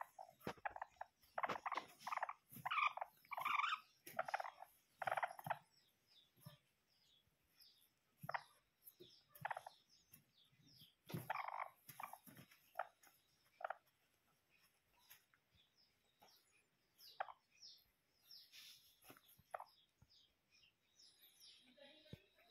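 Serama bantam hens clucking: a quick run of short calls over the first several seconds, then single clucks spaced out for the rest.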